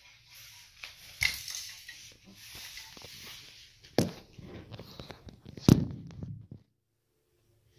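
Rustling handling noise with a few sharp knocks, the loudest about four and about five and a half seconds in, as the camera is moved about and set down on a wooden floor; it goes near silent for the last second.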